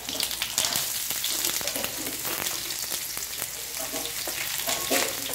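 Sliced onion and garlic sizzling in hot oil in a stainless steel sauté pan, stirred with a metal spoon that clicks and scrapes against the pan. The sizzle gets louder just after the start as the onion goes in.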